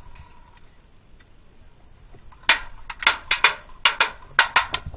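Airsoft gun firing about ten quick semi-automatic shots, sharp snapping cracks in an irregular string starting about halfway through.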